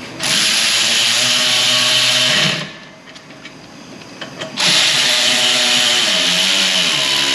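A cordless power tool with an Allen bit running the caliper bolts in on a Ford Transit Connect's rear brake, in two steady whirring runs: the first lasts about two and a half seconds and slows as it stops, and the second starts about four and a half seconds in.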